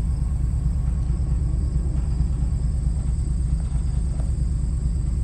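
Steady low rumble throughout, with a faint, thin high tone held steady above it.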